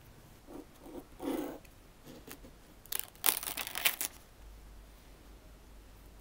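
A thin plastic sheet of screentone film rustling and crinkling as it is handled and laid over a drawing, with a few soft rustles early and a louder crackle lasting about a second from roughly three seconds in.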